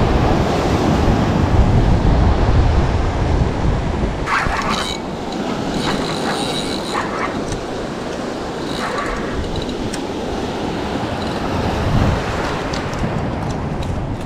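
Steady rush of ocean surf with wind rumbling on the microphone, heaviest in the first few seconds. A few short rustles and sharp clicks come later, from handling.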